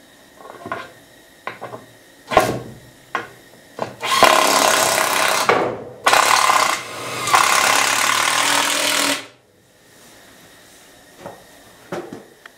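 A few knocks of wooden framing boards being set in place, then a cordless power drill driving a 3-inch screw into the wood in two runs, the second longer.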